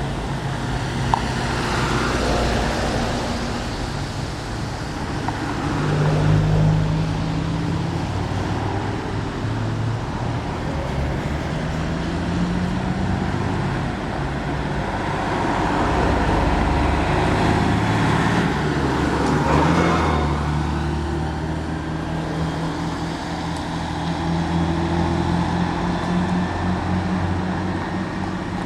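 Road traffic with engines running steadily and vehicles driving past, the closest passes at about 2 s, 6 s and again at 16 to 20 s.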